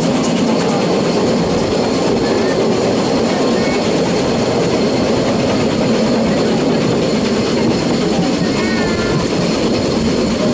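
Narrow-gauge steam train running along the track, heard from an open carriage: a steady, loud noise of wheels and carriages on the rails.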